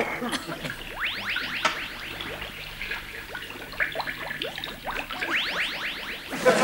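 Comic electronic sound effect: rapid runs of short rising whistles, one run about a second in and another near the end.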